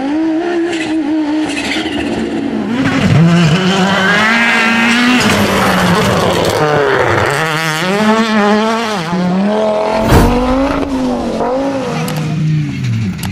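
Audi rally cars' turbocharged engines at full throttle, the pitch climbing and dropping again and again as they run up through the gears, with a couple of sharp cracks near the end.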